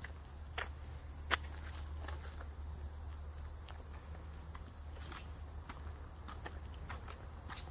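Footsteps of people walking along a trail, landing irregularly about once or twice a second, over a steady high-pitched insect chorus.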